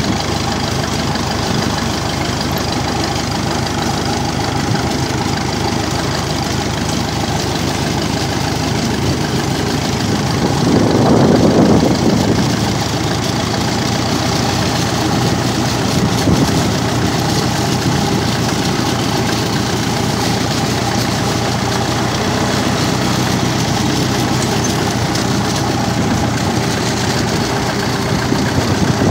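Massey Ferguson TEF-20's four-cylinder diesel engine running steadily as the tractor drives along a gravel road, briefly louder about eleven seconds in.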